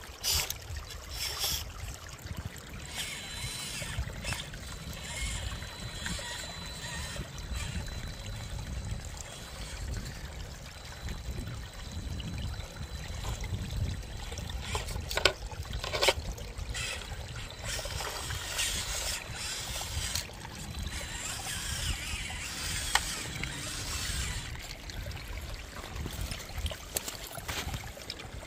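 Shallow creek water trickling and splashing as a small RC crawler truck wades through it, with a few sharp clicks past the middle.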